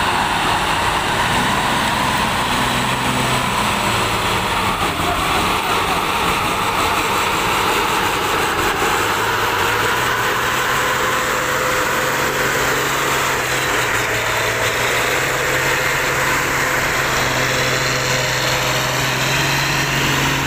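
Diesel engine of an old Mercedes-Benz truck running steadily as it pulls away carrying a huge boulder, with a dense, even hiss over the engine note.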